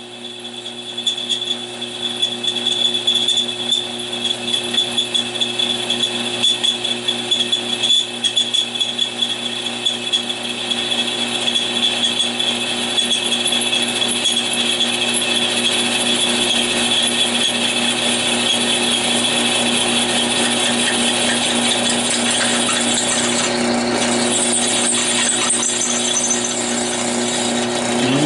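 Central Machinery 10-inch benchtop drill press running, its Harbor Freight Warrior bit cutting through steel square tubing. It makes a steady motor hum with a high whine over it. The cutting noise is uneven for the first ten seconds or so, then settles into a steady grind, and a higher hiss joins near the end.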